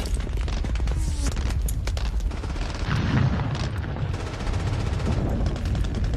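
Film battle soundtrack of a beach assault: dense rifle and machine-gun fire, many sharp shots over a constant low rumble of distant explosions. A heavier boom comes about three seconds in.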